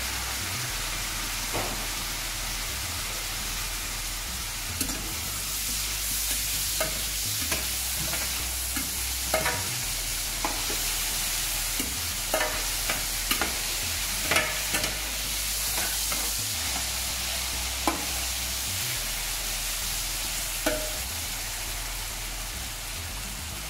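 Shredded carrot, parsley root and celeriac sizzling steadily in fat in a stainless-steel braising pan while vinegar cooks off. A spatula stirs them, now and then scraping and clicking against the pan's metal bottom.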